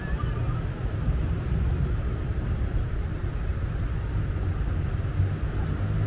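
Wind buffeting the handheld camera's microphone: a steady, fluttering low rumble.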